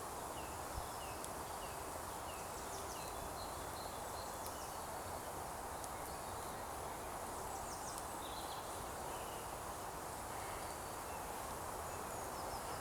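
Steady woodland ambience, an even hiss, with a bird singing a quick series of short falling notes in the first few seconds, and a few faint light ticks.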